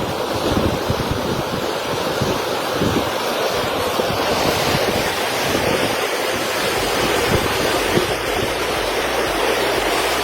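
Steady loud rushing of water, with wind buffeting the microphone.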